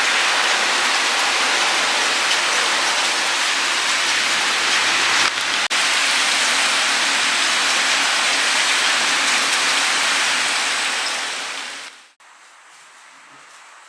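Steady, loud hiss of falling water, with a brief break a little after five seconds; it stops abruptly about twelve seconds in, leaving faint room sound.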